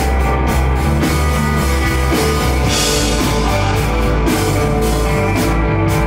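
A live rock band playing an instrumental jam: electric guitar, bass guitar and drum kit, with cymbals struck in a steady beat.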